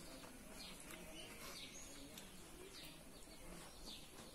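Faint bird calls: short falling chirps repeated about once a second, with a few faint clicks from hand-eating and chewing.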